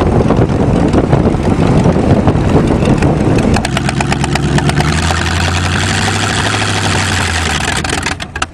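Carbureted car engine running on the road with heavy wind and road rush through the open, mesh-screened front. About three and a half seconds in, the rush drops and a steady, even engine drone comes through, easing off near the end. The carburettor is running lean; the driver thinks its jets are still too small.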